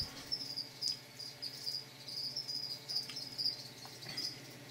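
A cricket chirping steadily: short high-pitched chirps, about two to three a second, over a faint steady low hum.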